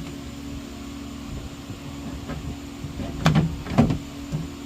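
A few sharp knocks and clicks from handling a 6x9 speaker against the door, two close together about three seconds in, over a steady low hum.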